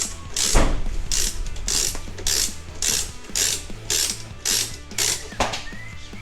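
Ratchet wrench running down a bolt: its pawl clicks in quick bursts on each back-stroke, about two strokes a second.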